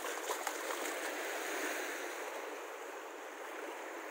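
Small sea waves washing onto a sandy shore, a steady rush of surf, with a few quick splashes in the first half-second as a child steps out through the shallow water.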